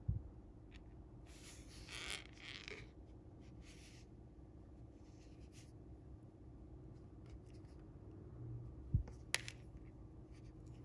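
Faint handling sounds of fingers working monofilament fishing line: soft scratchy rustles in the first few seconds, a low knock at the start, and a low thud followed by a sharp click about nine seconds in.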